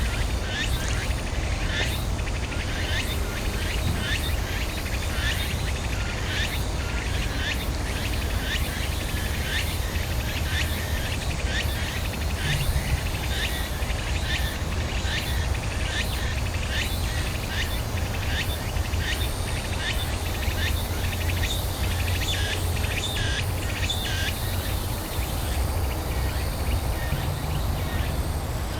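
Insects chirping in short, quick repeated pulses over a steady low rumble.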